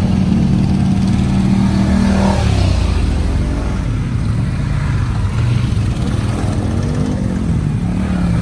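ATV engines running as quad bikes ride one after another past on a muddy trail. The engine note shifts lower about two seconds in and keeps rising and falling as each machine goes by.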